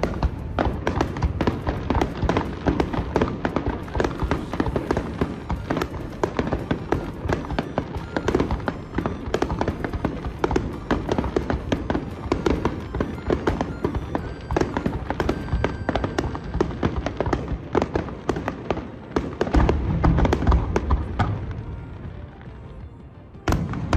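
Aerial fireworks bursting: a continuous run of overlapping bangs and crackles, with a deeper booming stretch about twenty seconds in that fades away, then the bangs start again abruptly near the end.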